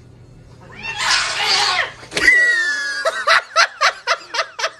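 A person laughing in quick repeated bursts from about three seconds in, after a breathy hiss lasting about a second and a sharp knock with a brief high squeal.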